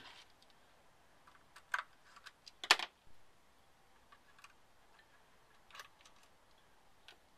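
Scattered light clicks and taps of a small screwdriver on the screw and plastic coupler box of an HO-scale model locomotive as the screw is backed out. The sharpest click comes about two and a half seconds in.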